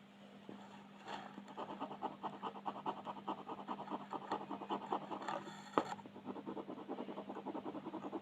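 Colouring strokes scratching rapidly back and forth on paper, several strokes a second, starting about a second in, with one sharp tick about two-thirds of the way through.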